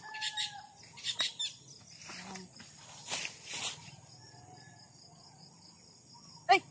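Insects buzzing steadily in a high drone, with an evenly pulsing chirp from about four seconds in, over rustles and scrapes of hands digging cassava roots out of loose soil. A sharp click near the end.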